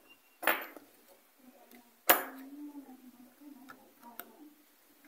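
Small plastic clicks and taps as a wire connector is fitted to a Bluetooth speaker's circuit board. The sharpest click comes about two seconds in, with fainter taps after it.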